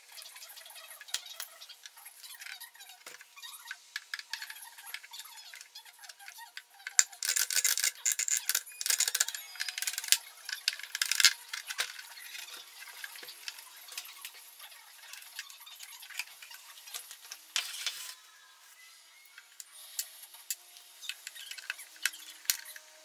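Hands and a screwdriver working on the plastic housing of an IKEA SY sewing machine as it is taken apart: irregular clicks, taps and scraping of the tool, screws and plastic parts. A louder, busier stretch of scraping and knocking comes about a third of the way in and lasts several seconds.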